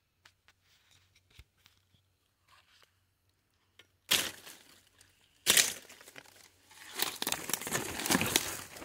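Leaves, vines and twigs rustling and crackling as someone pushes through dense undergrowth: a few faint snaps at first, then two loud crashes about four and five and a half seconds in, and continuous crackling rustle near the end.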